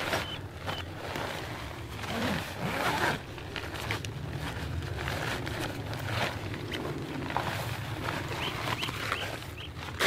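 Close rustling and scraping handling noise with short zip-like rasps, over a steady low rumble.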